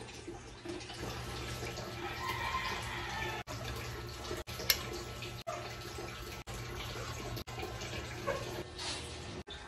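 Water running, a steady rushing noise over a low steady hum, with one sharp click about five seconds in.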